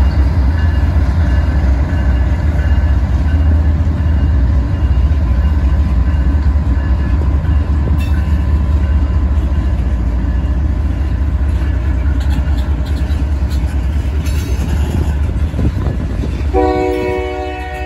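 Freight train's diesel-electric locomotives passing close by, a deep, steady engine rumble with wheel noise on the rails, easing slightly as the units pull away and the tank cars follow. About a second before the end, a train horn starts sounding a steady chord.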